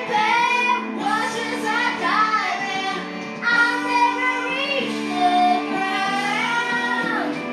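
A young boy singing a melody, holding long notes that bend and slide at their ends.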